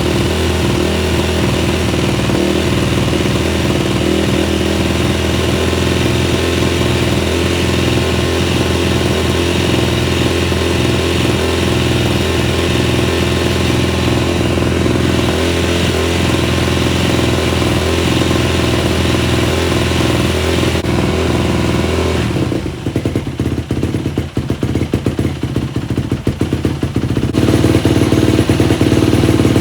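Yamaha YZ250F's 250 cc four-stroke single engine running at idle, its pilot jet freshly unclogged so that it no longer stalls. About two-thirds of the way through, the beat slows and turns uneven and quieter for a few seconds, then the engine picks up louder again near the end.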